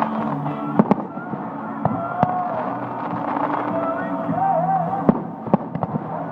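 Fireworks going off in sharp, separate bangs: a pair about a second in, two more around two seconds, and a quick cluster near the end. Festival music and crowd voices carry on underneath.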